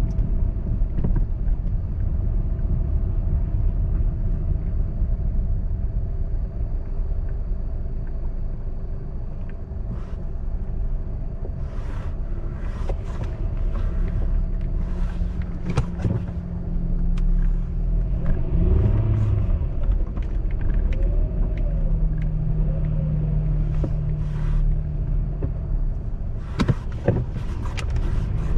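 Car driving slowly over snowy, icy streets, heard from inside the cabin: a steady low rumble of engine and tyres, with scattered short crackles and clicks in the middle and near the end.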